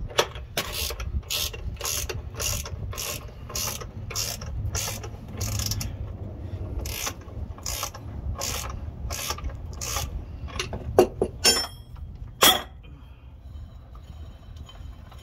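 Hand ratchet clicking as it backs the forcing screw off a pivot-bushing puller, in an even rhythm of about two strokes a second. It ends with a few sharper metal clinks before stopping.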